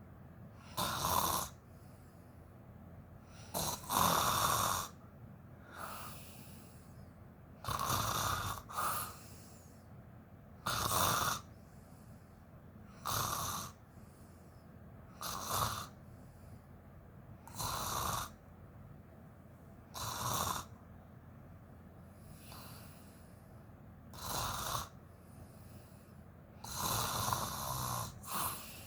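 A woman snoring while asleep: a short, loud snore about every two to two and a half seconds, a few of them coming in quick pairs.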